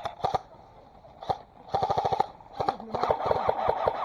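Airsoft gun firing rapid full-auto bursts: a short burst ending just after the start, a single shot, a short burst about two seconds in, and a longer burst near the end, each a fast string of sharp cracks.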